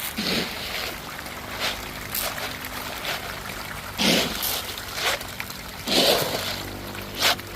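Water splashing in separate splashes, the biggest about four seconds in and about six seconds in, over a steady low hum.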